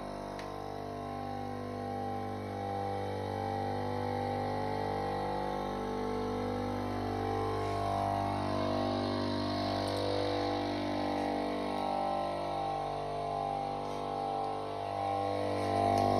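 Refrigerator compressor motors of a homemade air compressor running, a steady hum with a slow wavering beat in its tone.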